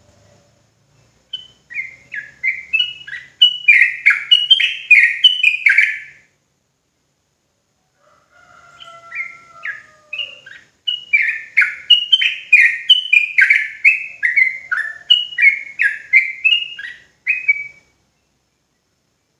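Yellow-vented bulbul (trucukan) singing its fast chattering 'ropel' song in two bouts separated by a pause of about two seconds. Each bout is a string of quick, bubbly, sweeping whistled notes, about three a second.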